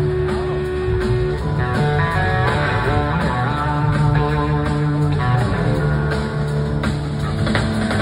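Live blues-rock band playing through a concert PA, electric guitar leading over bass and drums.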